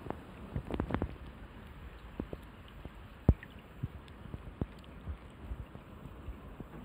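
Raindrops falling into shallow water, irregular single drips and plinks over a faint steady rain hiss, with one sharper drop about three seconds in.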